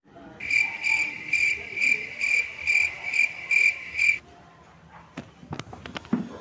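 Cricket chirping sound effect, about two and a half even chirps a second, cutting off abruptly a little past four seconds in. A few sharp clicks and knocks follow near the end.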